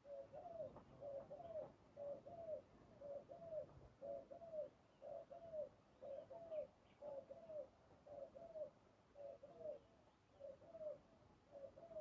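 Spotted dove cooing: a faint, steady run of short, arched coos, about one and a half a second.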